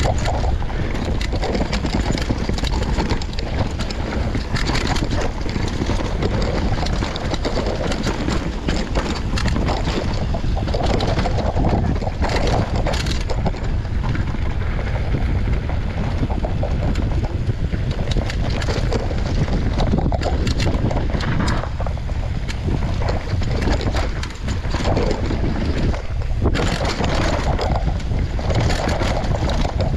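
Mountain bike riding fast down a rooty, rocky dirt trail: wind buffeting the microphone over a steady rumble of tyres on dirt, with frequent clatter and knocks as the bike hits roots and rocks.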